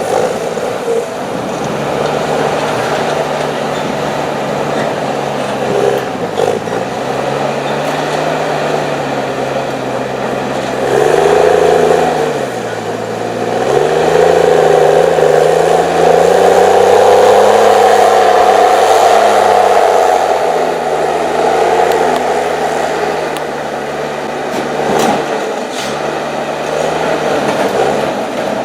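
The 6.7-litre diesel engine of an HSM 904 S forestry machine running hard under working load. Its revs sag briefly a few times and pick up again, with a louder, higher-revving stretch in the middle.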